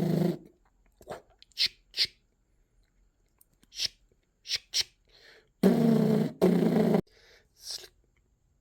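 A man's voice making mouth sound effects: a drawn-out low vocal noise right at the start and another, split in two, about six seconds in, with short sharp hissing 'sh' and 'tss' noises between them.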